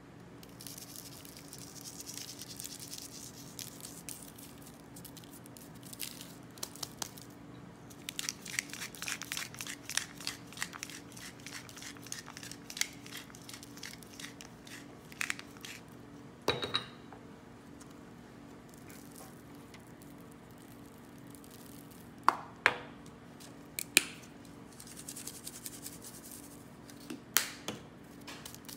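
Seasoning raw chicken wings on a parchment-lined baking sheet: a pepper mill ground in a long run of rapid small clicks, soft hissy patches of powder being shaken out, and a few sharp knocks of spice bottles set down on the stone counter.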